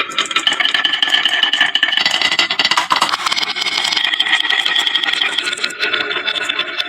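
Marbles rolling and clattering down a wooden marble run, a continuous rattle made of many small clicks with a ringing tone that shifts every second or two.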